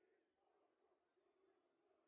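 Near silence: the sound track is all but muted.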